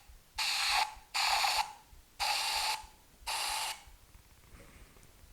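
Aerosol can of engine paint sprayed into a cap in four short hissing bursts, each about half a second long. The bursts come one after another in the first four seconds, then stop.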